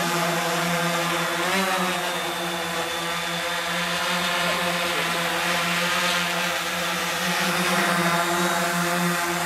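Electric motors and propellers of a large MikroKopter multirotor drone running with a steady, many-toned drone. The pitch briefly wobbles about a second and a half in.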